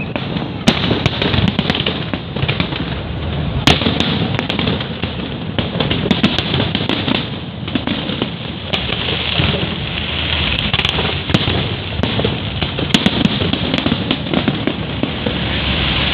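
Fireworks display: a continuous crackling rush punctuated by many sharp bangs going off in quick succession.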